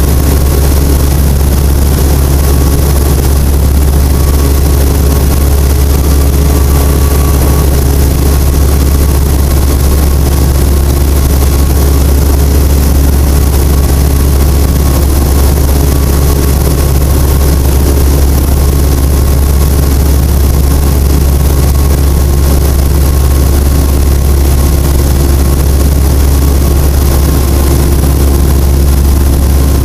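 Citabria light aircraft's four-cylinder engine and propeller droning steadily and loudly in flight, heard from inside the cockpit.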